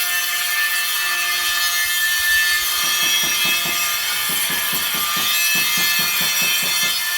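Saw cutting wood by hand: steady rasping, with quick back-and-forth strokes setting in about three seconds in, two to three a second.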